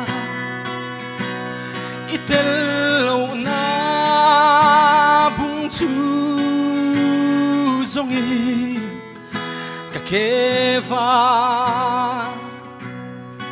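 A male solo voice sings a gospel song, holding long notes with vibrato, accompanied by a strummed acoustic guitar.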